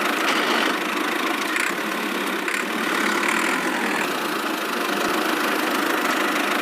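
Small motor of a miniature DIY model tractor running steadily, with no deep low end.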